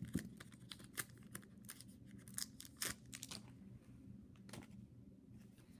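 Faint, irregular ticks and crinkles of a foil-wrapped football card pack being torn open and its cards handled.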